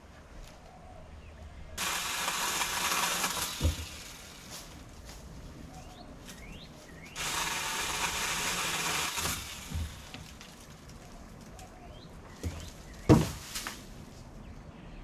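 Two bursts of a power saw cutting tree limbs, each lasting about two seconds, the first about two seconds in and the second near the middle. Separate sharp thuds come near the end of the first burst and, loudest, about two seconds before the end.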